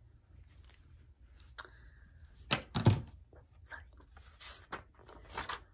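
A hardcover picture book being picked up and opened: a few knocks and rustles, with a heavier thump about three seconds in.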